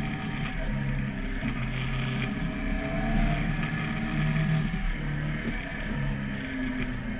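Sport motorcycle's engine heard from onboard the bike while riding, its pitch rising and falling with throttle changes, over a steady rushing noise.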